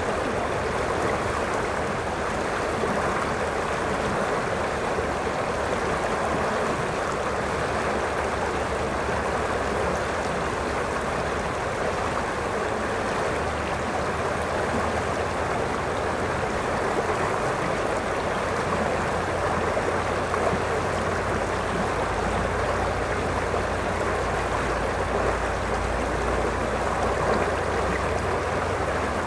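River water rushing steadily over a shallow rocky riffle: a continuous, even rush.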